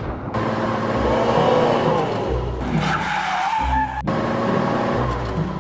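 Race-car sound effect, a car running and skidding with tyres squealing, over background music.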